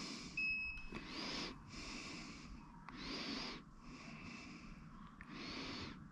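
An insulation tester beeps once, a short high tone, as a test is run on a hybrid battery cell. Between the readings there are soft bursts of close breathing about every second.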